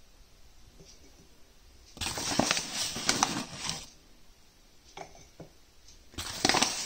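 A metal spoon scoops plain flour into a ceramic mug, scraping with light clinks against the mug. It comes in two bursts, one about two seconds in and a shorter one near the end.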